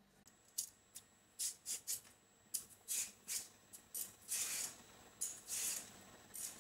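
Vegetable peeler scraping the skin off a raw potato in quick strokes, about two a second.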